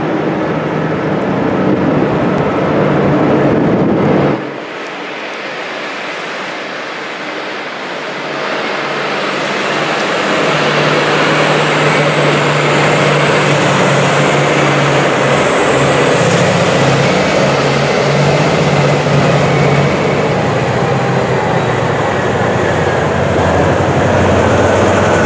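Heavy machinery running, a steady loud engine drone. The sound drops abruptly about four seconds in, and a steady low hum comes in about ten seconds in.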